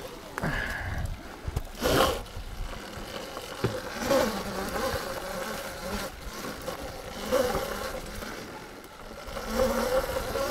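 Electric dirt bike motor whining steadily while riding a trail, with a few short, louder rushes of noise along the way.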